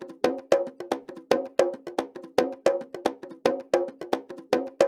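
Amapiano percussion loop from a sample pack: a fast, even pattern of short pitched percussion hits, about three to four a second.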